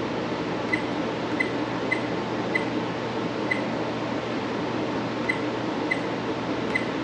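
About eight short, high electronic beeps at irregular spacing from the XTU trail camera as its buttons are pressed to step through the date setting, over a steady room hum.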